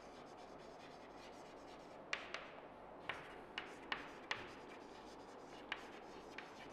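Chalk writing on a chalkboard: faint scratching strokes, with a string of sharp taps as the chalk strikes the board from about two seconds in.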